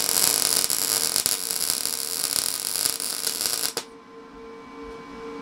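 Wire-feed welding arc on 1-inch square steel tubing from a Lincoln Electric 210MP welder: a loud, steady crackle that cuts off sharply nearly four seconds in, leaving a quieter steady hum.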